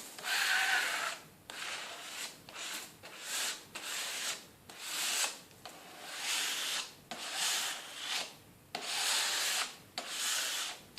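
Plastic card scraping back and forth across a jigsaw puzzle, spreading glue over the pieces in repeated strokes, about one a second.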